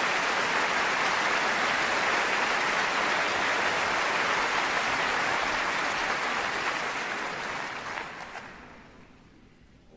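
Large concert-hall audience applauding, a dense, steady clapping that dies away about eight to nine seconds in.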